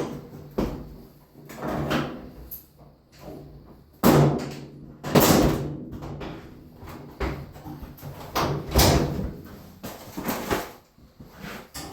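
Knocks and clunks of a Samsung top-load washer's top panel and lid being handled and worked on during its recall repair, coming every second or two with a sharp loud clunk about four seconds in.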